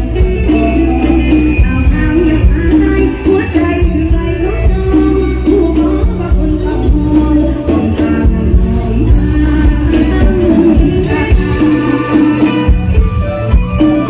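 Live mor lam band music played loud over the stage speakers: electric guitars, keyboard and a drum kit with a steady, heavy beat, and a woman singing over it.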